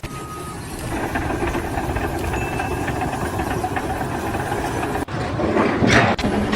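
An engine running with a steady low rumble, with two short faint beeps over it. About five seconds in the sound cuts abruptly to a louder, different noise.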